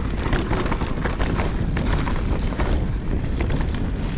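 Mountain bike rolling fast down a leaf-covered dirt trail: wind buffeting the microphone over the rumble of the tyres, with a steady clatter of small knocks and rattles from the bike over the rough ground.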